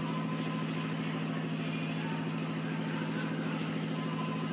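An engine running steadily at idle: a constant low hum that does not change in pitch or level.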